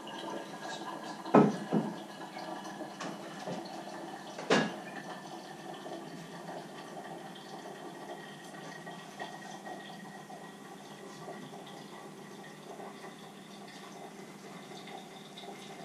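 Water splashing and trickling as hot water is poured from a kettle into a filter cone. A couple of sharp clinks come about a second and a half in, and another about four and a half seconds in; these are the loudest sounds.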